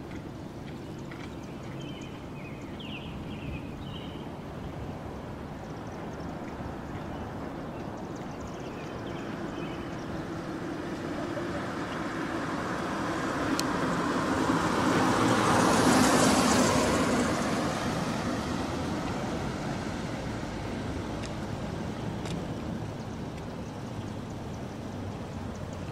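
A car driving past, its engine and tyre noise swelling to a peak about two-thirds of the way through and then fading away, over a low steady traffic rumble.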